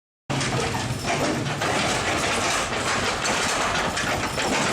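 Heavy road-works machinery running steadily, a loud low engine with mechanical clatter. It cuts in suddenly just after the start.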